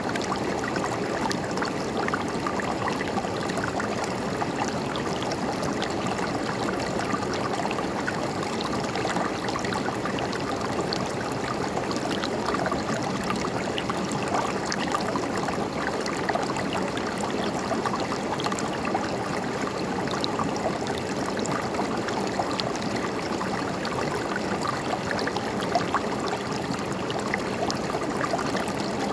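A river or stream running steadily over rocks, with a constant rushing babble and small splashes and gurgles.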